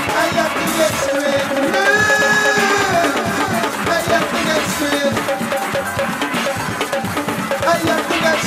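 Music with a drum beat; one note is held for about a second, starting about two seconds in.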